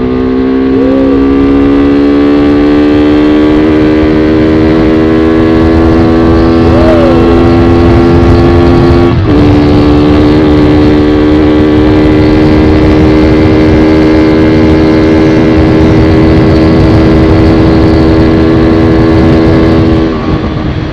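Motorcycle engine with a full-system Akrapovic exhaust pulling at full throttle, its pitch climbing slowly through fourth gear. About nine seconds in there is a brief break as it shifts up to fifth, then it holds a nearly steady high pitch near top speed until the throttle closes near the end. A rough rumble of wind on the microphone runs underneath.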